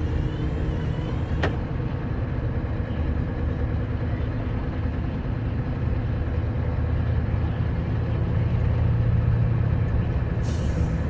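Scania R560 truck's V8 diesel engine running under load with a steady low drone that grows louder about eight seconds in. A sharp click comes about a second and a half in, and a short burst of hissing air near the end.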